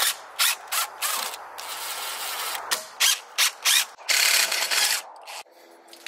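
Cordless drill-driver backing screws out of wooden camper trim, running in a series of short bursts with one longer run, and stopping about five seconds in.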